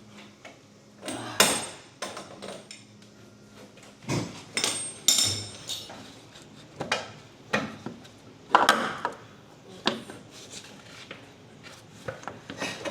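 Metal hand tools and parts clanking and knocking irregularly, about ten sharp clanks, one near the middle ringing briefly.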